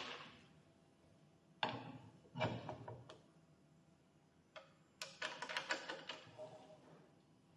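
Metal clicks and knocks from the handle and frame of an 18-inch manual flooring and siding cutter being handled during assembly: a sharp click at the start, two knocks about two seconds in, and a quick run of rattling clicks around five to six seconds.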